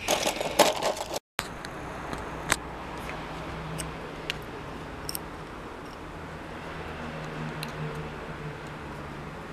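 Small steel parts of a shotgun lock clinking and rattling as they are handled, loud for about the first second and then cut off abruptly. After that come a few faint clicks of a screwdriver working on the lock plate over a steady low hum.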